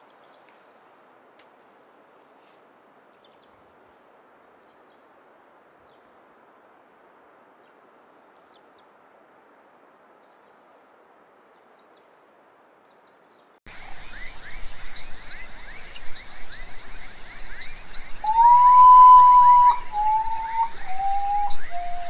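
Faint steady hiss, then, about two-thirds of the way in, a sudden switch to a loud night chorus of insects: rapid repeated chirps and a high steady buzz. Over it a common potoo sings its mournful whistled song: one long note that rises and then holds, followed by three shorter notes, each lower than the one before.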